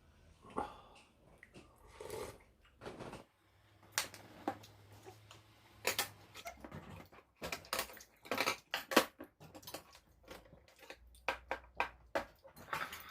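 Eating utensils clinking and knocking against bowls during a meal of galbitang: irregular sharp clicks and taps, more frequent in the second half.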